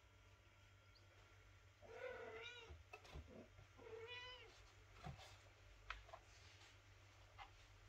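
A cat meowing twice, about two seconds apart, each call rising and then falling in pitch. A few faint taps follow.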